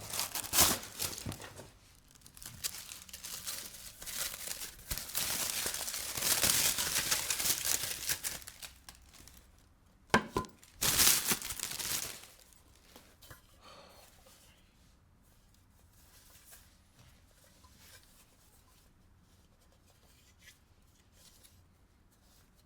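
Perfume box packaging being torn open and crinkled by hand, in a run of loud rustling bursts with a sharp snap about ten seconds in, then only a few faint light taps.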